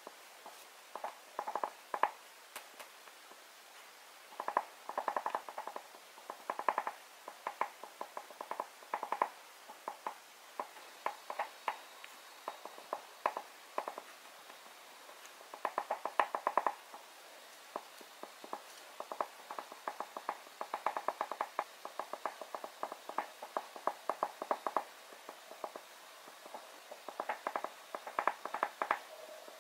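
Oil pastel stick scratching across paper in quick short back-and-forth strokes, coming in bursts of rapid scratches a second to several seconds long with brief pauses between.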